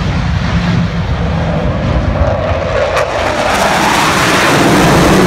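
Jet noise from a formation of Blue Angels F/A-18 Hornets passing overhead, growing louder toward the end, with a whine that rises and then falls in pitch as the jets go by. There is one brief click about three seconds in.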